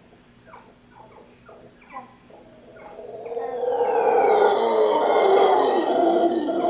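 Howler monkey howling: faint at first, then from about three seconds in a loud, rough, drawn-out howl that swells and holds.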